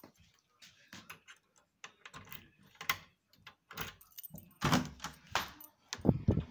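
A bunch of house keys jangling and clicking as they are carried and handled, with a door being worked: short rattles throughout, getting louder and denser in the last second or so.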